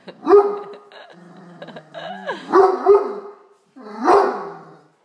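Great Dane barking three times in deep, loud barks, with a low held note between the first two. It is demand barking at a tray of dinner rolls on the counter.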